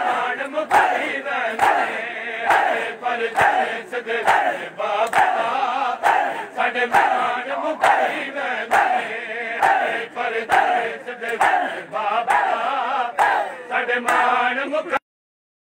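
A large crowd of mourners doing matam: many hands slapping bare chests together in a steady beat about once every 0.8 seconds, over massed men's voices chanting a noha. The sound cuts out for about a second near the end.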